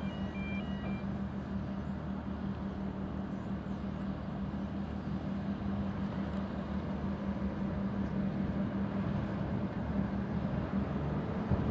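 Ferry diesel engines droning steadily: a low, even hum under a soft rushing noise.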